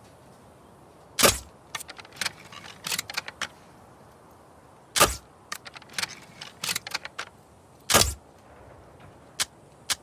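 Crossbow shots: three sharp releases, about a second, five seconds and eight seconds in, each followed by a run of small mechanical clicks, with two more lone clicks near the end.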